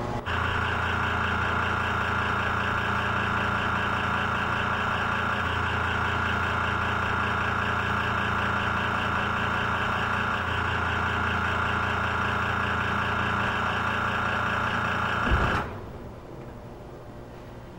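Water-plant pump machinery running with a steady mechanical hum. About fifteen seconds in the hum cuts off abruptly with a short thump, leaving a fainter steady hum.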